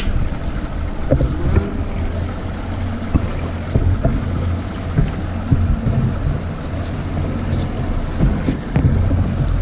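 Motor boat's engine running steadily at low cruising speed, a constant low hum, with water washing along the hull and wind buffeting the microphone.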